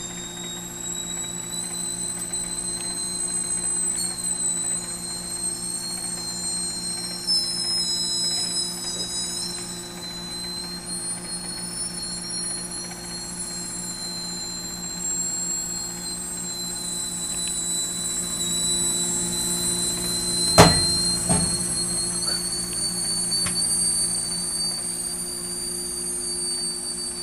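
Microwave oven running with a steady hum while a potato heating inside gives off a high, wavering whistle of several tones that drift slowly in pitch. About twenty seconds in, the potato pops sharply, with a smaller pop just after.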